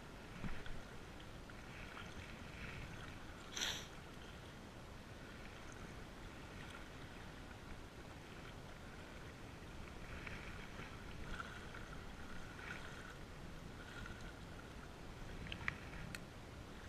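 Small wind-driven waves lapping against a rocky lakeshore, with wind noise, a short sharp hiss a few seconds in and a couple of faint clicks near the end.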